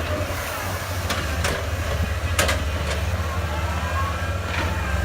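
Komatsu excavator's diesel engine running with a steady low drone, while its hydraulics whine in rising glides twice. Sharp metallic knocks come about 1.5, 2.4 and 4.6 s in. The machines run second-hand hydraulic pumps, which the owner says howl.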